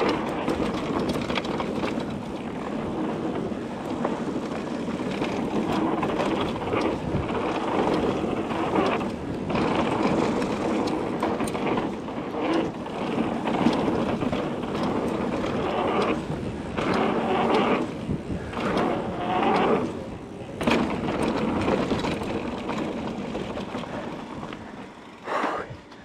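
Mountain bike riding down a dirt jump trail: a steady rush of tyre noise and wind on the action camera, with a few brief lulls as the wheels leave the ground over the jumps.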